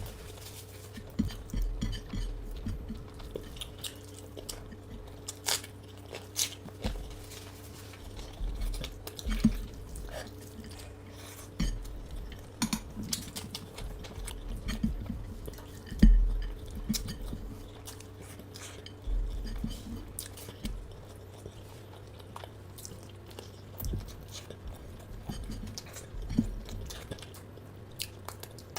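Chewing and eating, with irregular clicks and clinks of a plate and cutlery, over a steady low hum.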